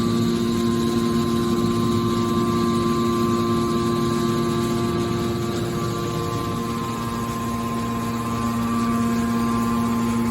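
Hydraulic aluminum can baler running: a steady machine hum from its motor and pump, with several constant tones and no knocks or pauses.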